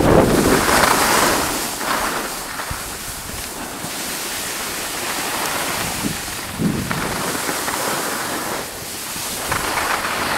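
Wind buffeting the camera's microphone while skiing downhill, with a steady hiss of skis sliding over packed snow. The low rumble of the wind is heaviest in the first second or two and returns in a short gust about six and a half seconds in.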